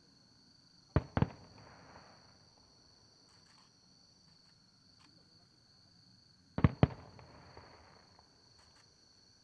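Large aerial firework shells going off in two volleys of three sharp bangs each, one about a second in and the next nearly six seconds later, each volley trailing off in a rolling echo. Insects chirp steadily underneath.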